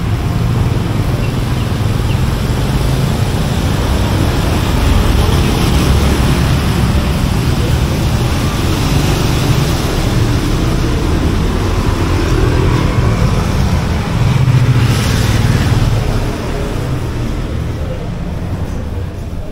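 Street traffic: motorbikes and cars passing on a wet road, a steady engine hum with tyre hiss. One vehicle passes louder about fifteen seconds in, and the sound is quieter and duller over the last few seconds.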